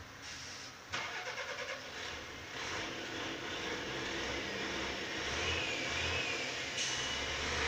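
Stalled semi-truck's diesel engine cranking on the starter with a rapid chugging for under a second, then catching and running, growing slowly louder.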